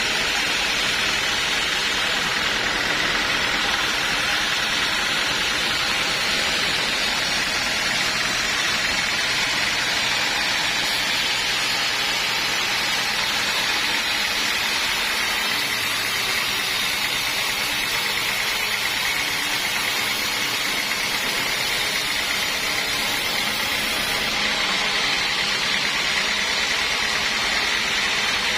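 Sawmill saw machine running steadily: an even, constant noise with a faint steady whine.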